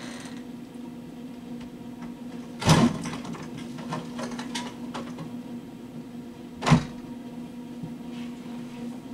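Two short, loud knocks about four seconds apart, with a few faint clicks between them, over a steady low hum.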